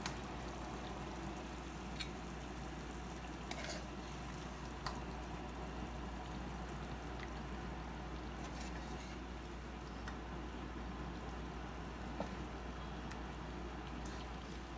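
A serving spoon scraping and clicking now and then against a frying pan as mutton chops in thick gravy are spooned out, with wet drips and pours of gravy into a bowl, over a steady low hum.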